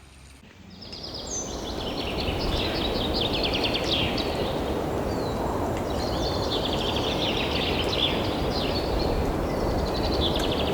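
Songbirds singing in quick trilling phrases over a steady rushing background noise that swells in during the first two seconds. Both cut off abruptly at the end.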